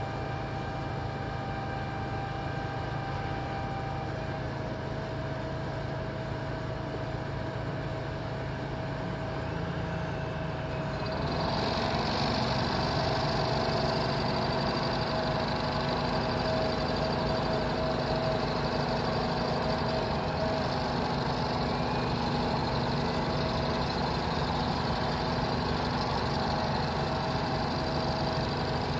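Engine of a road-construction machine running steadily, with a steady hum of several tones; about eleven seconds in the sound steps up louder and brighter and holds there.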